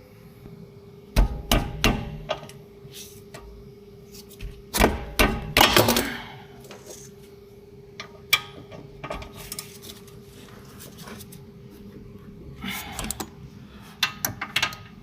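Irregular hammer blows and metal tool clatter, in several short clusters of knocks, over a faint steady hum.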